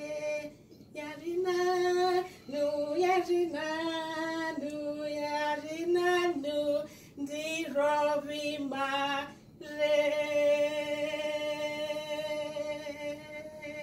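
A woman singing a short song unaccompanied, in several phrases with brief breaths between them, ending on one long held note.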